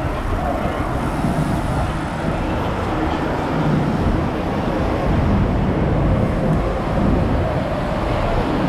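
Steady roadway and traffic noise with a deep rumble.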